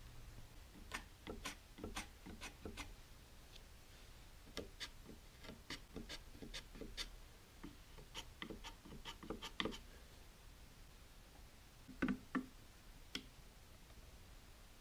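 Light, irregular clicks and taps of hand work with a small tool on a plywood workpiece, several a second in bursts. Near the end come two louder knocks close together, then one more.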